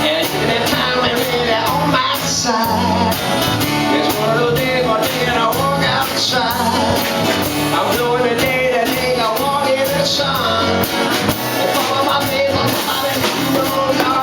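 Live band playing: drums keep a steady beat under bass notes, with a bending melody line over them.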